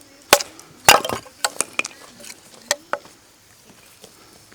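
A series of sharp knocks and clinks: a quick cluster about a second in, then single hits spaced out over the next two seconds.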